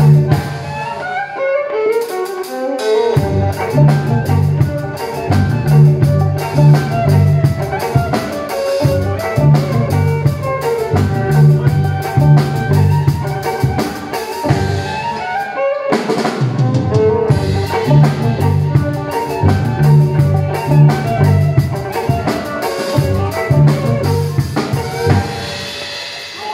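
Live music: a drum kit and a violin playing together over a pulsing low bass line. The band breaks off briefly about two seconds in and again about sixteen seconds in.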